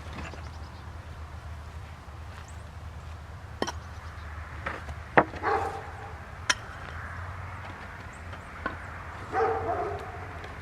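Four sharp knocks from hand work in a garden bed, and a dog barking twice, once about halfway through and again near the end.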